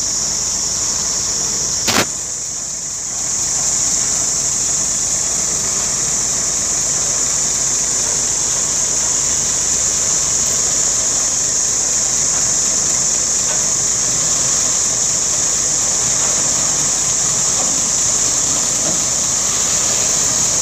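A 50-tonne mobile crane truck's diesel engine running as the truck moves slowly up a dirt track, under a steady high-pitched hiss. There is one sharp click about two seconds in.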